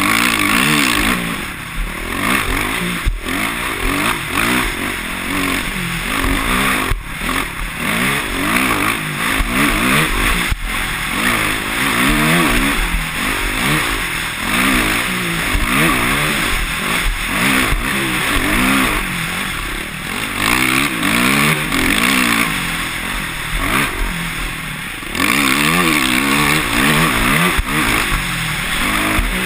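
Dirt bike engine revving up and down over and over as the throttle is worked along a rough trail. A few sharp knocks stand out early on the ride.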